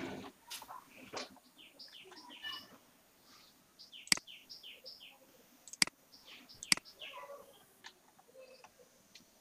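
Birds chirping in short, repeated high calls, with three sharp clicks about four, six and seven seconds in.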